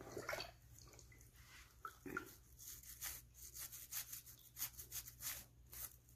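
Wet, soapy hands rubbing and kneading the sole of a bare foot: a faint patter of quick, wet squelching clicks, several a second, that thickens from about two seconds in.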